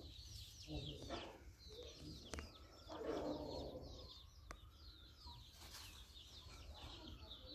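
Free-range country chickens clucking, with small birds chirping quickly and repeatedly all around; one longer, lower cluck comes about three seconds in. The whole scene is faint.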